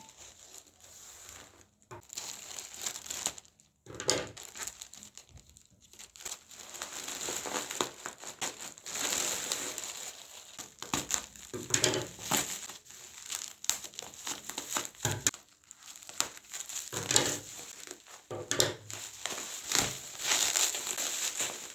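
Packaging crinkling and rustling in irregular bursts as a parcel is unwrapped by hand, with occasional sharp handling clicks.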